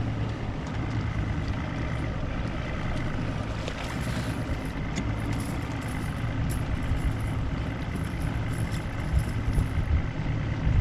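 A boat's outboard motor running at a steady speed, with water and wind noise over it.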